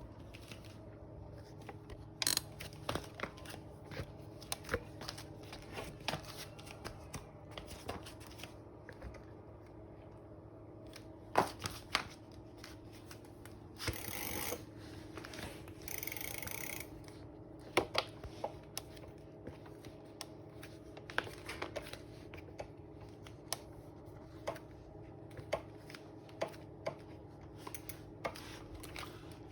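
Creak noise from a crank bolt: repeated sharp, irregular clicks and creaks over a steady low hum, with two short rushing noises about halfway through.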